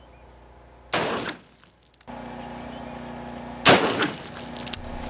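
7.62x51mm (.308) rifle shots from an LR308, fired at a steel-free rifle plate: two sharp reports, one about a second in and a louder one near four seconds in, each with a short decaying tail.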